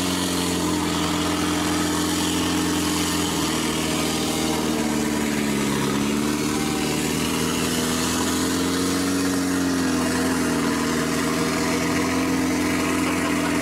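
Off-road 4x4 buggy's engine idling steadily while the buggy sits bogged nearly to its roof in a deep mud pit, breathing through its raised snorkel. The pitch sags slightly about halfway through, then recovers.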